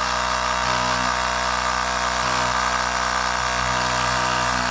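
Travlog 150 PSI cordless portable tire inflator running steadily, its small electric compressor pumping air through the hose.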